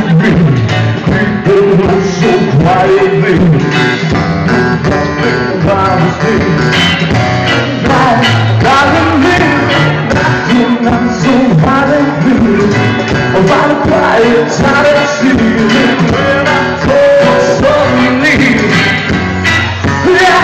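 A rock band playing live with a lead singer: electric guitar, drums and keyboard. The music is loud throughout.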